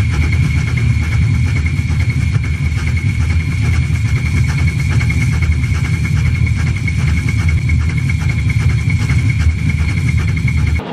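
GWR 57xx-class pannier tank steam locomotive 3650 running: a loud, steady rumble with a constant high whistling tone over it.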